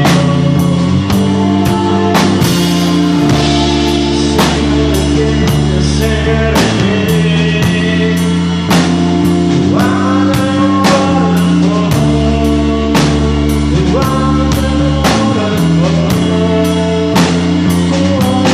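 Stoner rock band playing live: guitars, bass and drum kit, with cymbal strikes about twice a second over sustained chords.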